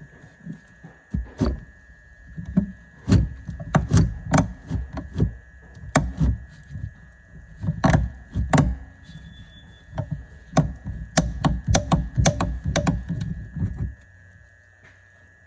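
Hand work with tools and parts: a string of irregular knocks and clunks over a low rumble, which stops about fourteen seconds in.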